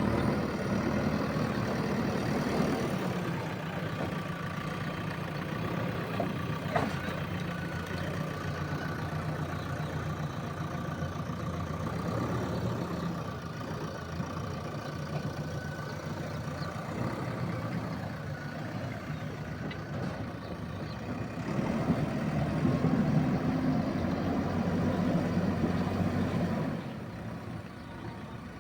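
JCB 3DX backhoe loader's diesel engine running steadily, growing louder for about five seconds toward the end and then easing off.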